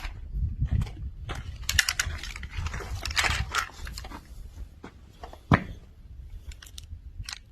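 Handling noise as a handgun is handled: rustling and scattered small clicks over a low rumble, with one sharper click about five and a half seconds in. No shots are fired.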